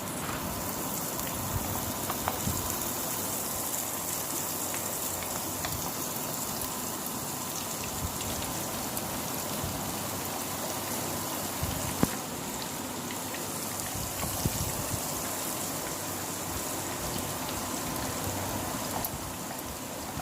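Gram-flour batter drops (boondi) frying in hot oil in a kadhai: a steady sizzle with small crackles throughout. A single sharp knock sounds about twelve seconds in.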